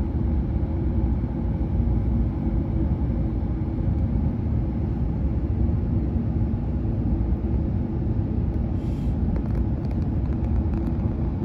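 Steady, dense low rush of water spray jetting against the underside of a Hokuriku Shinkansen train to clear packed snow, with a faint steady hum under it. A few light clicks come near the end.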